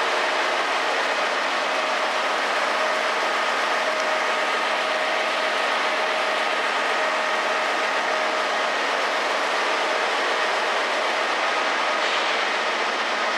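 A manroland Cromoman 70 web offset printing press running at production speed: a loud, steady mechanical din with a few steady whining tones on top.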